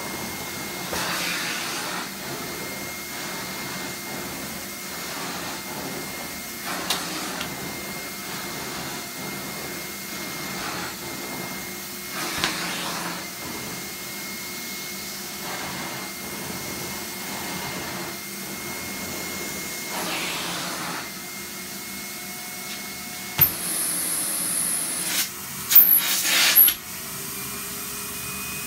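Kerstar KV/10 commercial tub vacuum running with a steady whine and a thin whistle, its floor tool swishing over a thick shaggy carpet in repeated strokes. About two-thirds of the way through there is a sharp click and the whistle stops, followed by a brief high whine and a few loud knocks and clatters.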